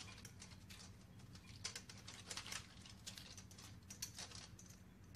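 Bamboo skewers being wetted for soaking, rubbed and rolled by hand in a little water on a stainless steel plate: faint, irregular clicks and rattles of the sticks against each other and the metal.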